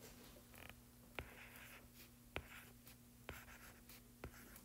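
Faint tapping and scratching of a stylus writing on a tablet's glass screen: a sharp tap roughly once a second, with short scratchy strokes between the taps, over a faint steady hum.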